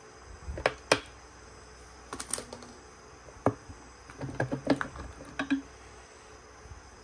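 Irregular light clicks and knocks of the aluminium magneto cover of a Modenas Kriss 2 motorcycle engine being rocked and pulled off the crankcase by hand, the loudest knock about a second in.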